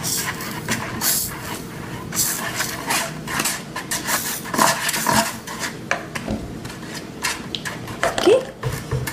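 A plastic spoon scraping and clicking against a disposable bowl as a glue mixture is stirred, with many short irregular clicks and knocks.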